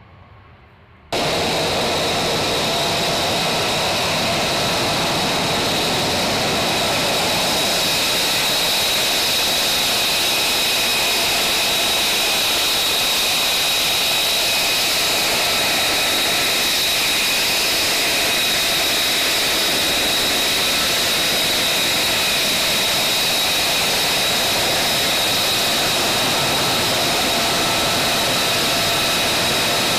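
Lockheed Martin F-35A Lightning II's single Pratt & Whitney F135 turbofan running steadily at ground idle close by: a loud, even rush with a high whine. It begins abruptly about a second in.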